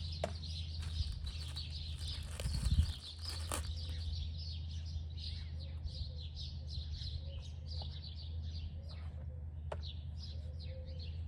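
Small birds chirping over and over, high and quick, over a steady low hum. A few sharp clicks and a brief low thump about two and a half seconds in come from handling the mower's plastic air filter cover.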